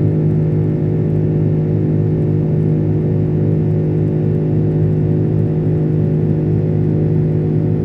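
Steady drone of an Airbus A330-300's Rolls-Royce Trent 700 turbofan engines heard from inside the cabin, a constant low hum made of several fixed tones over a rushing noise.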